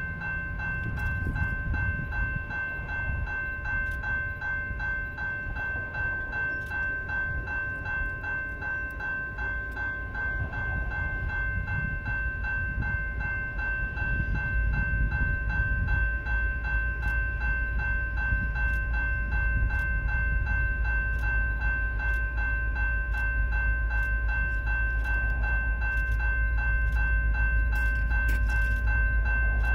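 Railway level-crossing warning bell ringing in a fast, steady ding, sounding while the crossing lights flash for an approaching train. A low rumble builds underneath from about halfway through.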